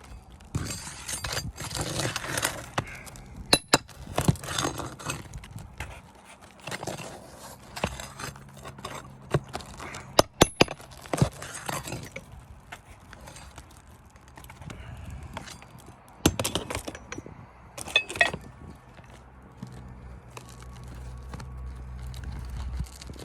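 Hands and tools working roofing material in a roof repairability test: a busy run of clinks, scrapes and cracking, with sharp snaps scattered through and the loudest pair about ten seconds in.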